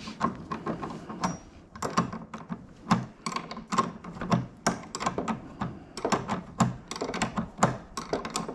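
Irregular small metallic clicks and clinks of a metal RC boat propeller and its prop nut being worked by hand and with a spanner on the boat's drive shaft.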